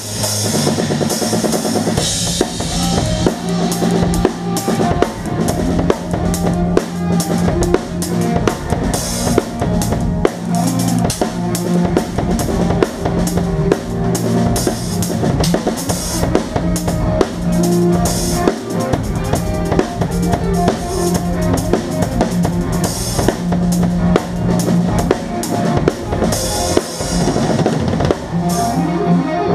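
Full drum kit played live with a band: fast kick and snare strokes and cymbal crashes, over steady held bass and guitar notes.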